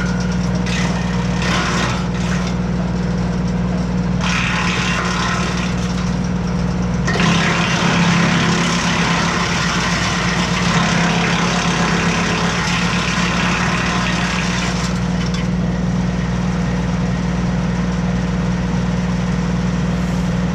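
Tractor engine running steadily at PTO speed, driving a Titan BX42S PTO wood chipper. A thicker branch, up to about 4 inches, is fed in and chipped: brief harsh bursts early on, then a louder stretch of chipping from about 7 to 15 seconds in.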